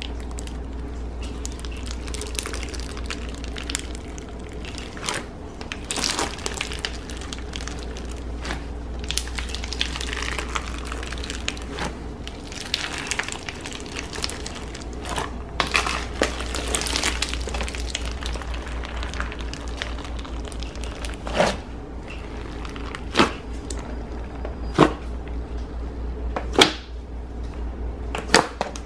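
Floam slime, white slime packed with foam beads, crunching and crackling as hands press and dig into the bead layer. In the last third, as the slime is pulled and stretched, several sharp pops stand out. A steady low hum runs underneath.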